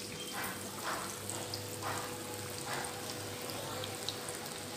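Chana dal vadai deep-frying in hot oil: a steady sizzle with scattered crackles.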